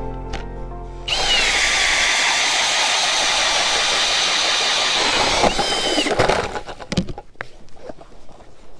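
Milwaukee M18 cordless drill driving an ice-auger bit into lake ice. The motor whines up about a second in and runs steadily with the grinding of the blades cutting ice, whines again briefly near six seconds, then stops, followed by quieter scraping and knocks.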